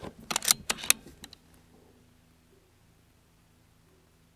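A quick run of sharp metallic clicks lasting about a second as the BARRA 1100Z .22 PCP air rifle's action is worked to chamber the next pellet between shots. This is followed by a faint steady background.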